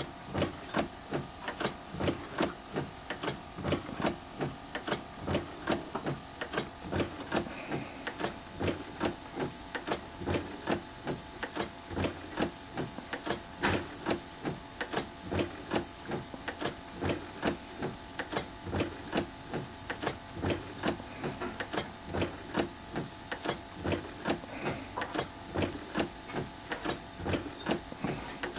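Model sternwheeler's twin steam engines turning the paddle wheel slowly, with a steady rhythm of knocks about two to three a second over a constant hiss. This is about as slow as the engines run smoothly.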